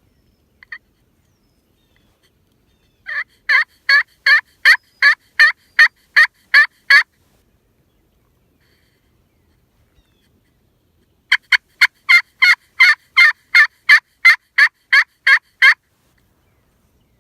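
Hen turkey yelps sounded on a hunter's turkey call: two runs of about a dozen evenly spaced yelps, roughly three a second, with a pause of about four seconds between them.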